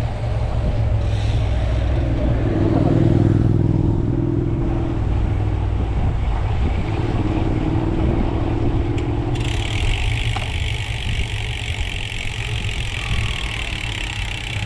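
Wind rushing over the microphone of a riding cyclist, with a motor vehicle's engine running close by. About two-thirds in, a steady high buzz begins: a bicycle freewheel ratcheting while coasting.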